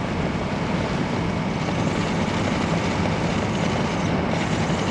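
Steady drone inside the cab of a first-generation Dodge Cummins D250 pickup cruising at about 65 mph: the Cummins turbo diesel running under light load at an easy cruising speed, mixed with wind and road noise.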